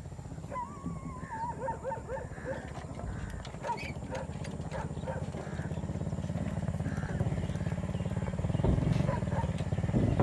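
A boat's engine running with a steady low throb that grows louder. Over it, in the first few seconds, comes a wavering animal call.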